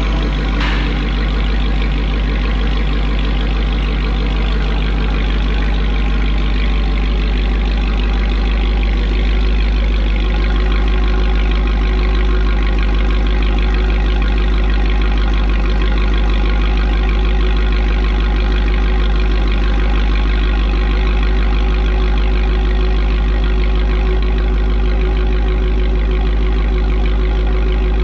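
Supercharged 6.2-litre HEMI V8 of a Dodge Charger Hellcat idling steadily through a freshly installed Corsa Extreme catback exhaust, a deep even rumble, while the new exhaust is checked for leaks. A short click sounds less than a second in.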